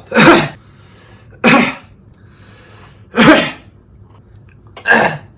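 A man coughing: four sharp, separate coughs about one and a half seconds apart.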